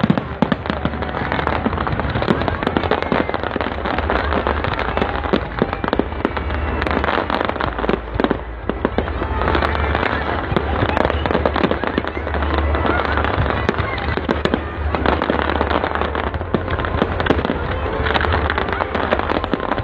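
Aerial fireworks display: a dense, unbroken run of bangs and crackles from bursting shells, many close together.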